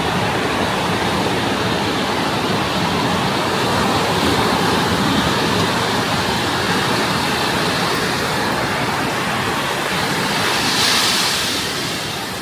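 Ocean surf at a beach: a steady rush of waves, with one wash swelling louder and hissier near the end before easing off.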